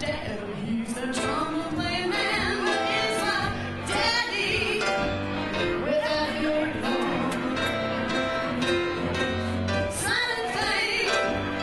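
A woman singing into a microphone while accompanying herself on piano, with wavering held notes about a third of the way in and again near the end.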